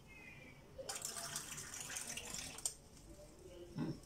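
Warm water poured from a plastic jug into a steel plate of rice flour, a splashy pour of about two seconds starting about a second in, as the dough for the pitha is wetted a little at a time.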